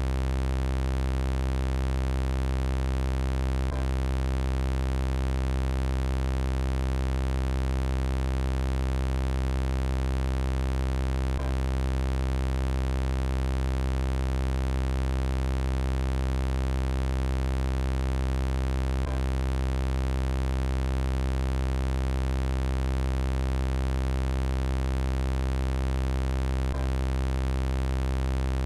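Synthesized robot sound effect: a steady, unchanging electronic buzzing drone made of many stacked tones, strongest low down. It is looped, with a faint click about every seven and a half seconds where the loop repeats.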